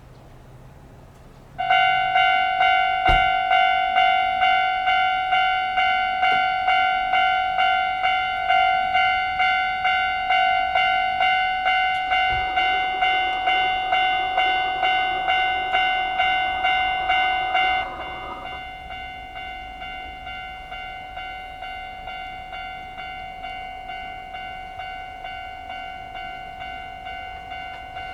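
Japanese level-crossing warning bell starts up about two seconds in: a loud electronic ding repeating in a fast, even rhythm. It drops to a lower volume near the end and keeps ringing.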